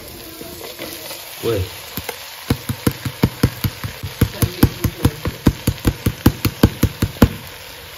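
Rapid, even knocking, about five or six strokes a second for roughly five seconds: a plastic colander being tapped against the pot to shake the last of the boiled rice into it.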